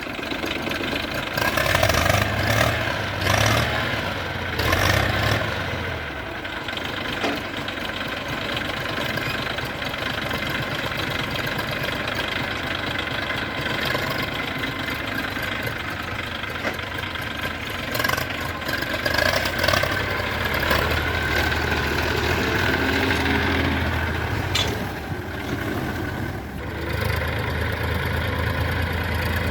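Diesel engines of a JCB backhoe loader and tractors running at an earthmoving site, the engine note swelling now and then as they work.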